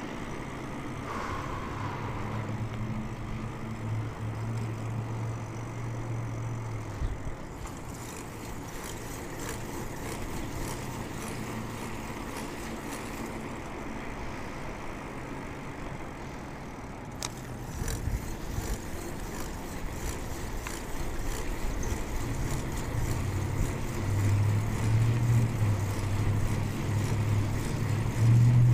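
Road noise from a moving bicycle: a steady rush of wind and tyres, with a motor vehicle's low engine hum that fades after the first few seconds and returns louder near the end. A single sharp click about two-thirds of the way through.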